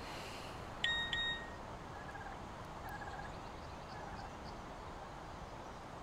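Short electronic beep from a Nokia keypad mobile phone about a second in, two pitches sounding together, the higher one stopping first. Faint soft chirps follow over a quiet outdoor background.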